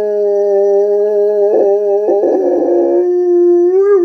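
Rottweiler howling: one long, held howl that drops slightly in pitch about three seconds in and begins to waver up and down near the end.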